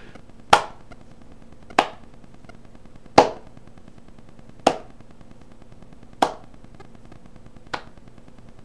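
Six single finger snaps, evenly spaced about a second and a half apart, the last one fainter.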